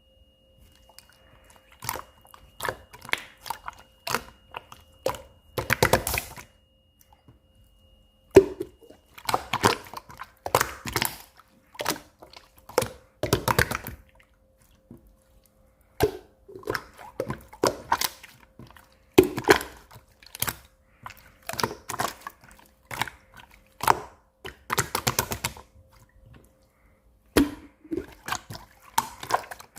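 Clear slime being squished and kneaded by hand, giving runs of sticky clicks and pops from trapped air with short pauses between.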